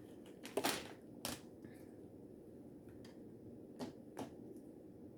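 A few soft, scattered clicks and taps of kitchen items being handled while a salad is put together, over a quiet room.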